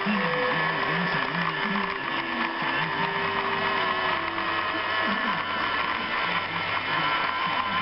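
Model train set running on its track: a steady mechanical whirring and rattling from the small electric motor and wheels.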